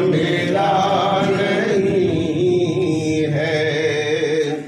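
Male devotional chanting of a Sufi manqabat in long, wavering held notes, breaking off near the end.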